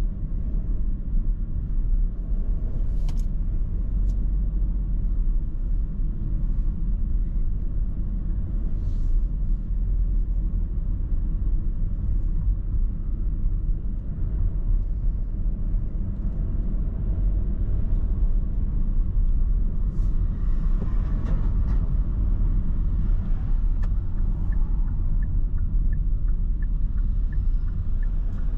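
Steady low road and engine rumble heard inside a car's cabin while driving, with a couple of short clicks a few seconds in. Near the end a turn signal starts ticking about twice a second.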